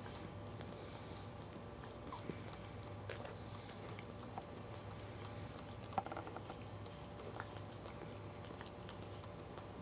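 Cairn Terrier mother licking her newborn puppy: soft, wet licking and smacking clicks over a low steady hum, with a sharper click about six seconds in.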